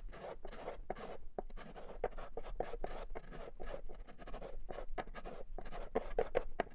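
A small block plane shaves the edge of a walnut end-grain cutting board in quick, short scratchy strokes, about three a second. It is cutting a bevel through difficult grain.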